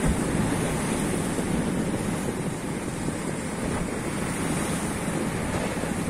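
Sea waves washing over a flat rock shelf, steady surf with a wave breaking against a rock slab right at the start. Wind buffets the microphone underneath.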